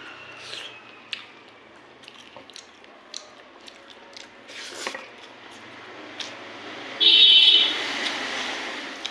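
Close-up eating sounds: small wet mouth clicks and chewing while eating rice and curry. About seven seconds in, a short, loud, high-pitched tone cuts in for under a second and fades into a haze.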